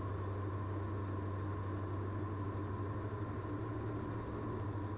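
Steady, even drone of a Diamond DA42's twin engines and propellers in level flight, heard inside the cabin as a low hum.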